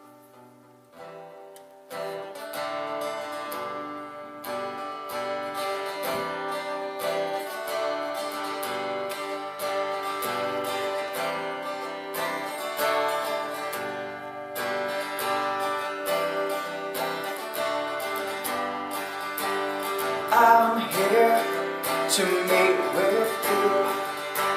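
Acoustic guitar strumming chords as the instrumental introduction to a worship song. It starts softly, fills out about two seconds in, and gets louder near the end.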